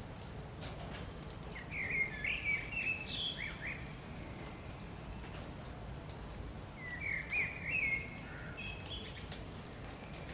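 Steady rain with scattered drops pattering, and a songbird singing two short phrases of quick chirps, about a second and a half in and again about seven seconds in.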